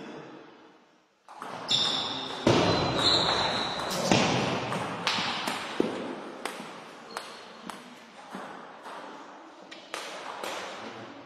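Table tennis rally: the plastic ball clicks off the table and the rubber-faced bats in an even rhythm, a little under two hits a second, with a few short high squeaks near the start.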